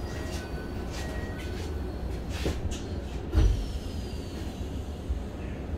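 Keikyu 1000 series commuter car's sliding passenger doors closing at a station stop, shutting with a heavy thud about three and a half seconds in, over the low hum of the stopped train.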